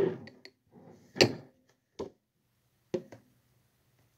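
Pint glasses and a bottle knocking on a wooden tabletop as they are handled and set down: a few sharp knocks about a second apart, the loudest about a second in.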